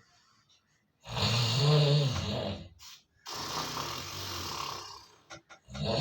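Loud human snoring: a rough, pitched snore about a second in, a weaker, breathier snore after it, and another loud snore starting near the end.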